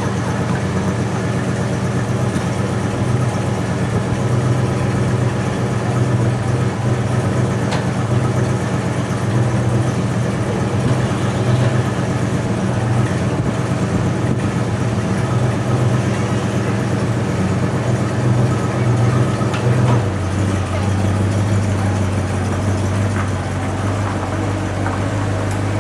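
Old Ford Mustang's engine idling steadily just after being started; about three-quarters of the way through the idle drops a notch lower and stays there.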